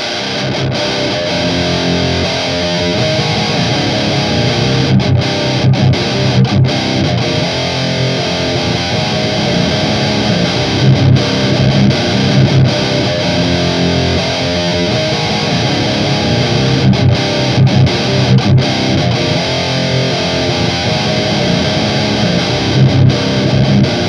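Distorted electric guitar riff: a Fender Jazzmaster in C standard tuning on its bridge pickup, played through a DigiTech Grunge distortion pedal into an Orange Rockerverb 100 MkII amp, the riff repeating about every six seconds.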